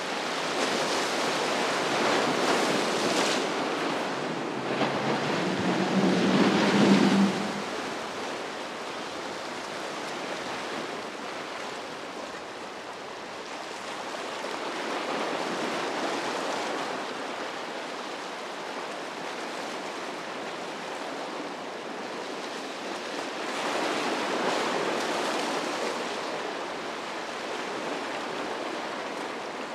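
Waves breaking and surf washing through an ocean inlet, with wind on the microphone. The rush is loudest over the first seven seconds, drops off abruptly, then swells again briefly later on.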